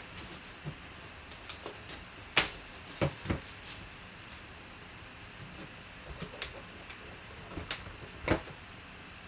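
Shrink wrap being stripped off a cardboard trading-card box, then the box handled and set on the table: scattered crinkles, taps and knocks, the loudest a sharp knock a little over two seconds in.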